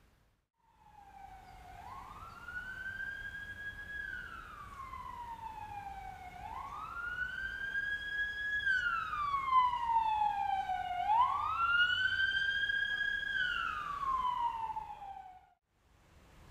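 A siren wailing in three slow cycles, each rising, holding high for a moment, then falling away again.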